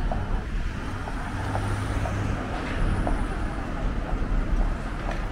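City street ambience with the steady rumble of passing traffic.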